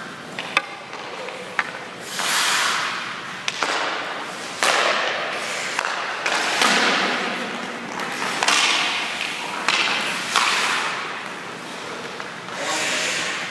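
Hockey skate blades scraping and carving across rink ice in repeated hissing swells, about one every one to two seconds. Several sharp knocks come in between.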